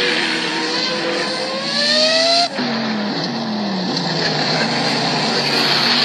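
Open-cockpit sports prototype race car accelerating hard away from a standing start. Its engine note climbs steadily for about two and a half seconds, cuts off sharply for an upshift, then picks up at a lower pitch that drops and fades as the car pulls away.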